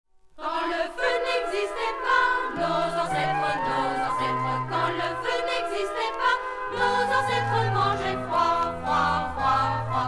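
Scout choir singing with orchestral accompaniment. A low bass part comes in a couple of seconds in and grows fuller about seven seconds in.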